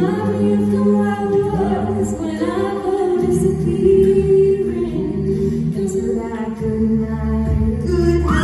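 Mixed-voice a cappella group singing into microphones, holding long chords in close harmony.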